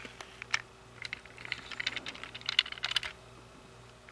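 Faint small plastic clicks and rattles from a Trackmaster toy engine's tender being handled and pushed up to the engine, the taps coming thickest about one and a half to three seconds in.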